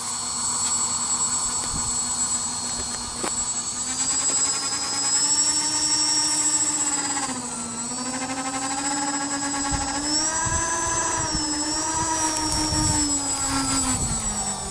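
Electric ducted fans of a radio-controlled A-10 jet model whining as it taxis, the pitch following the throttle: it rises about four seconds in, dips briefly around the middle, rises again, and falls away near the end.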